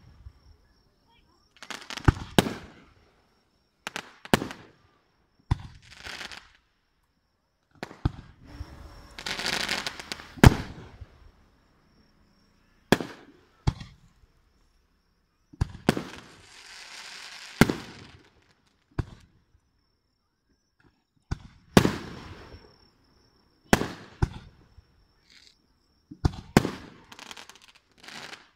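Aerial fireworks display: a string of sharp shell bursts every couple of seconds, two of them followed by a second or two of crackling.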